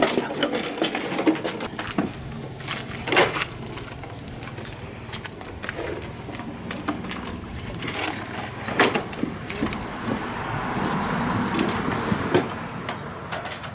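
Irregular knocks, clunks and scraping as a heavy metal lathe is handled and shifted, with a longer rough scraping noise about ten seconds in.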